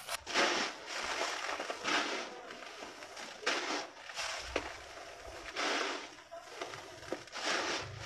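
Handfuls of dry, coarse grey grit scooped up and poured back into a plastic tub, with a rushing, crunchy patter of falling grains each time. There are about five pours, one every second and a half or so, with quieter gritty shuffling in between.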